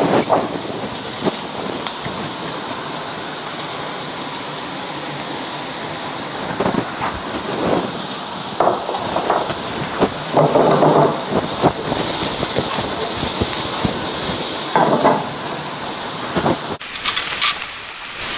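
Sliced rehydrated shiitake mushrooms and onions sizzling steadily in oil in a frying pan, with a few short scrapes and knocks of stirring, the most around the middle and near the end.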